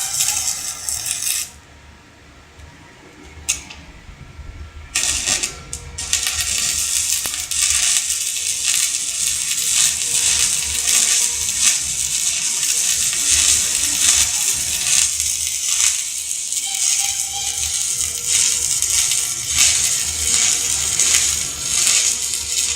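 Electric arc welding with a stick electrode: the arc crackles and sizzles. It breaks off briefly about a second and a half in and is struck again in short flashes. From about six seconds on it burns steadily.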